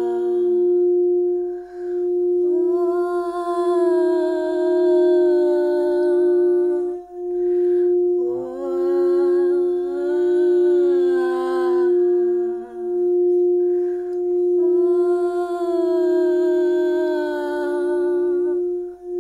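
Frosted crystal singing bowl tuned to the heart tone, rimmed with a mallet so it sings one steady, sustained note with a fainter overtone an octave above. The note dips briefly twice. A humming voice joins in, holding long, slightly wavering tones in three phrases.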